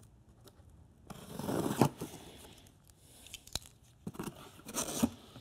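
Packing tape on a small cardboard box being slit and torn open, with a rasping tear about a second in. A single sharp click follows, then the cardboard flaps rustle as they are pulled open.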